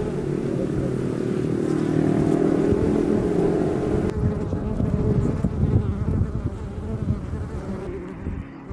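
A mass of honeybees buzzing around open hive frames: a steady hum of many wings, its pitch wavering up and down.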